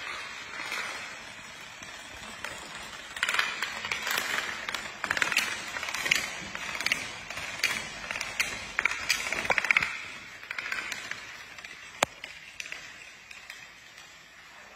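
Long chains of plastic dominoes toppling one after another, a rapid clattering run of tiny clicks that grows denser and louder for several seconds in the middle, with one single sharp click later on.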